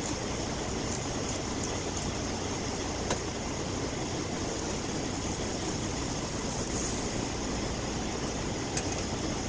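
Eggs frying in a small pan on a butane camp stove's burner: a steady hiss over a low, even vehicle rumble. There are a couple of faint clicks from the spatula and pan.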